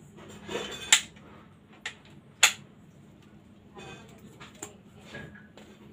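Reloading a PCP air rifle: two sharp metallic clicks about a second and a half apart, with fainter clicks and handling noise, as the bolt is worked and a pellet loaded. No shot is fired.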